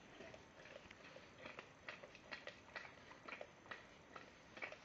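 Bull terrier licking out a plastic yoghurt pot: faint, irregular clicks and taps of tongue and teeth on the plastic, about three a second.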